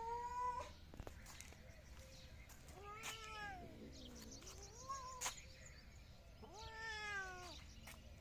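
Cat meowing for food: a long meow ends about half a second in, followed by three shorter meows, the first and last falling in pitch and the middle one rising. A few faint clicks come between them.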